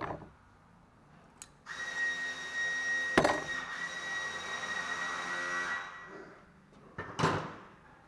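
Metal clanks from a brake caliper bracket being handled. Under them, a steady hiss with a high whistling tone lasts about four seconds, with a sharp clank in the middle and another near the end.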